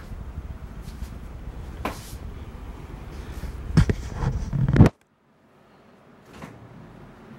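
Rumble of a handheld camera being carried, with a few sharp clunks and knocks that grow loudest just before the sound cuts off abruptly about five seconds in. After that there is faint room tone with a single click.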